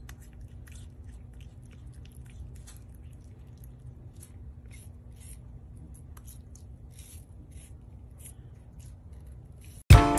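Baby prehensile-tailed porcupine chewing a slice of fruit: an irregular run of small crunching clicks, a few a second, over a low steady hum. Music starts suddenly near the end.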